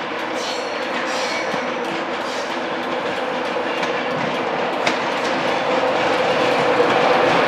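Class 91 electric locomotive approaching, its wheel and rail noise growing steadily louder, with a few light clicks from the track. A steady hum builds in the last couple of seconds as the train draws near.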